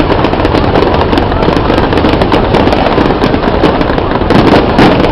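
Fireworks going off continuously: dense rapid crackling and popping over a constant loud rumble of bursts.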